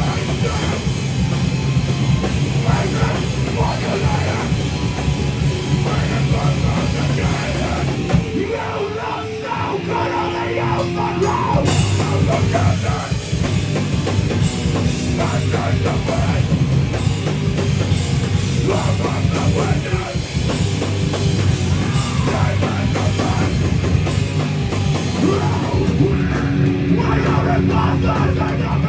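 Heavy band playing live and loud, with a drum kit pounding under dense heavy-metal music; the sound thins briefly partway through, then the full band comes back in.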